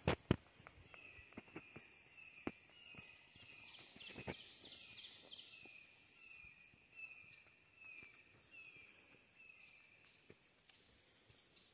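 Songbirds singing: repeated short down-slurred whistled notes, some high and some lower, through most of the clip. A few sharp clicks come near the start, the loudest of them in the first half-second.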